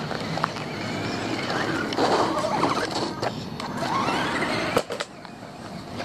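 RC desert buggy driving on pavement, its motor whining higher as it speeds up and passes close, over the grit of its tyres on the road. A sharp knock about five seconds in, after which it gets quieter.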